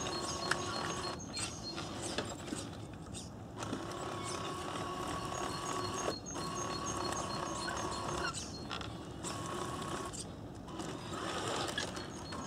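Tamiya RC tractor truck with its tanker trailer manoeuvring: a steady electric-motor and gearbox whine with a rapid train of high electronic beeps, cutting out briefly several times as the truck stops and changes direction.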